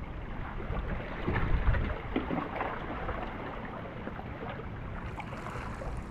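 Small waves lapping and splashing against breakwater rocks, with wind buffeting the microphone; it swells a little between one and two seconds in.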